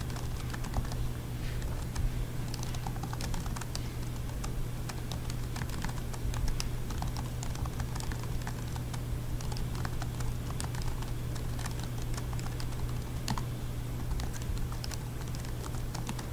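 Typing on a computer keyboard: a steady run of irregular key clicks, over a constant low hum.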